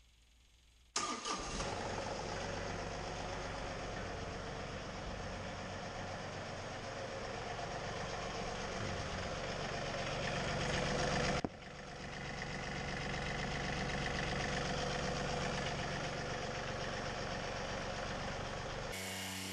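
An engine running steadily, cutting in suddenly about a second in. It drops off abruptly about eleven seconds in, builds back up, and changes abruptly again near the end.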